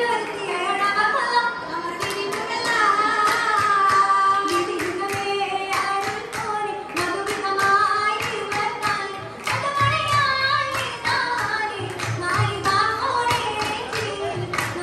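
An oppana troupe of girls singing a Mappila song together, keeping time with steady rhythmic hand clapping.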